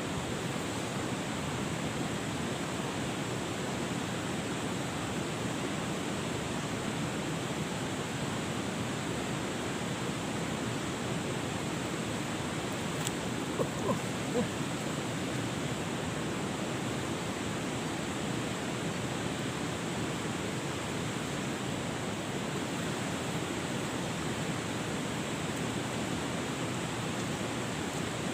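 Steady rushing of river water, an even, unbroken flow noise.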